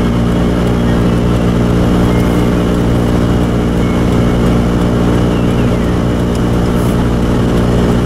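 1990 Toyota 4Runner heard from inside the cab while driving on a snow-covered road: a steady engine drone, with the heater blower running on high.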